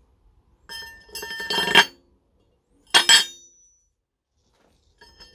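Steel engine lift plate clinking against the intake manifold and its studs as it is set in place for a test fit: a cluster of ringing metal clinks about a second in, then one more sharp clink about three seconds in.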